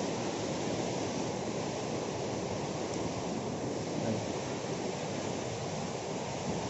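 Steady rushing of the Suru river, running fast and strong.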